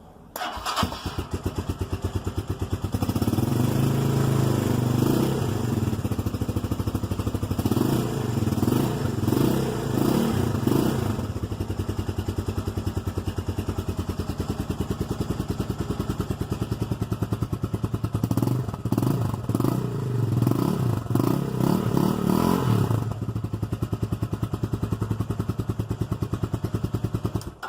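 Italika 250Z motorcycle's stock single-cylinder engine and exhaust: it starts about half a second in and idles with a deep note. It is revved in two stretches with repeated throttle blips, then cuts off at the end.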